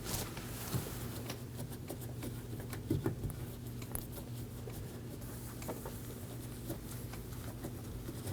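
Cloth rag wiping and rubbing a van's door panel around the handle opening, scattered light rustles and small taps, over a steady low hum.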